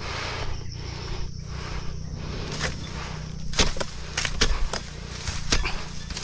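Oil palm frond pruning with a sharp dodos chisel on a pole: a run of sharp knocks and scrapes as the blade strikes and cuts into frond bases, loudest about halfway through, over a steady low rumble.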